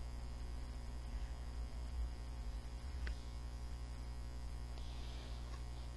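Steady low electrical mains hum, with a faint click about three seconds in.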